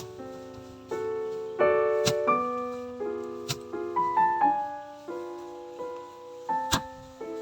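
Background piano music: slow chords that ring and fade, with a simple melody over them. A few sharp knocks sound through it, the clearest about two seconds in, three and a half seconds in and near the end.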